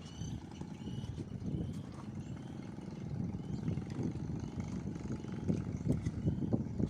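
Strong wind buffeting the microphone, an irregular low rumble rising and falling in gusts, a little stronger in the second half.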